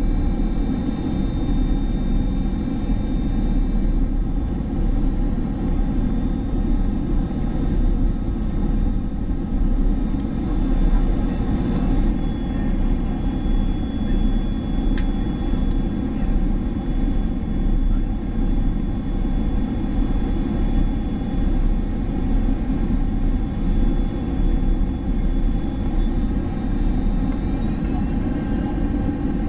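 Boeing 767 cabin noise on final approach: a steady rumble of airflow and turbofan engines, with thin steady engine whine tones above it. Near the end the whine rises in pitch as engine thrust changes.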